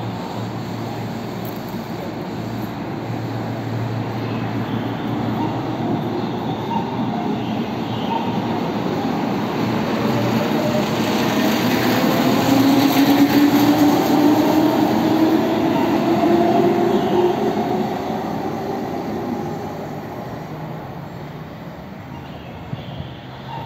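Keihan 8000 series limited-express train pulling out and accelerating: wheels rumbling, with motor whine rising steadily in pitch. It grows loudest about halfway through as the cars pass, then fades as the train draws away.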